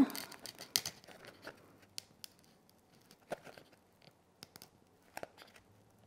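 Faint scattered scratches and clicks of a wooden skewer being worked into a glitter-coated foam shape and handled, a few sharp ticks at a time with pauses between.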